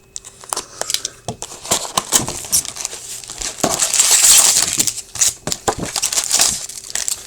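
Plastic wrapping crinkling and tearing as a sealed box of hockey trading cards is unwrapped and opened, with small clicks and rustles of cardboard and packs being handled. The crinkling is loudest in the middle stretch.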